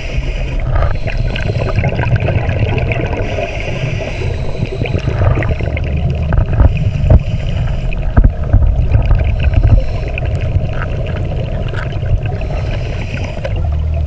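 Underwater ambience heard through a dive camera: a steady low rumble with scattered clicks and crackles, and louder bubbly bursts about six to nine seconds in.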